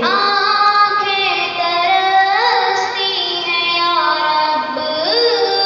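A boy singing an Urdu naat, holding long notes that slide smoothly from one pitch to the next.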